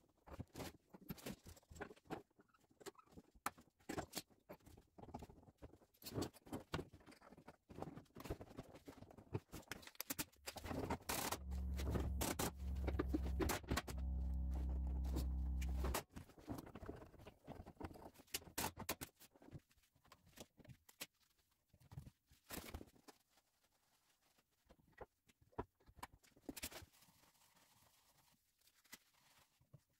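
Hand work on a car in a workshop: scattered clicks, taps and knocks of parts and tools being handled. A steady low hum runs for about five seconds in the middle and is the loudest part.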